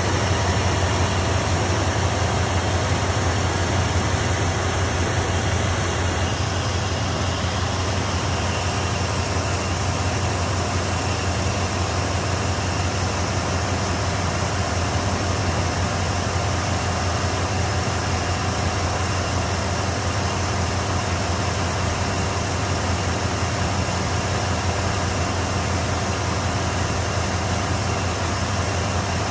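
2002 Dodge Ram 1500 pickup's gasoline engine idling steadily with the hood open, a constant low hum without revving.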